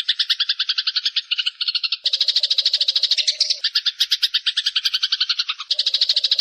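Eurasian tree sparrow giving a long, rapid chattering call of about a dozen notes a second. The tone shifts abruptly about two seconds in and again near the end.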